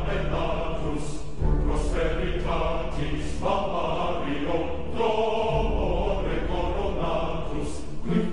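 Choral music: a choir chanting over a deep, pulsing bass, with a few sharp percussive hits.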